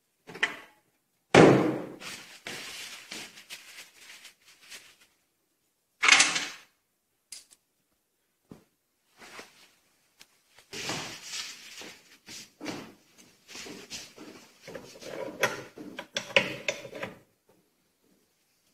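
Metal clunks and clicks from the loading lever and weight hook of an oil friction test rig being handled. One heavy clunk about a second and a half in and another about six seconds in, then a run of lighter clicks and knocks.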